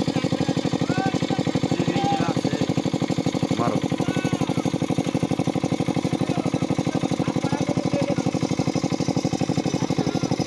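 Small engine driving a water pump, running at a steady speed with a rapid, even chug, pumping water out of the pond through its hose.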